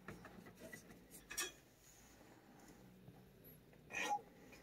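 A toothbrush on a long stick brushing a cat's head fur, mostly quiet with faint bristle rustles. There is a light tap about a second and a half in, and a short, sharper scratchy sound about four seconds in as the brush moves over the cat's head.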